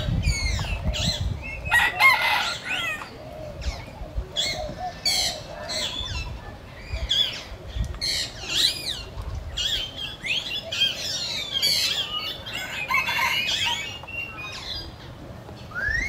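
Several birds chirping and calling throughout, with quick whistled glides and trills, over an intermittent low rumble.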